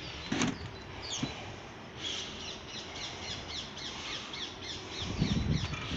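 A bird calling in a rapid run of short, harsh descending notes, with two sharp knocks in the first second and low rumble from handling and footsteps near the end.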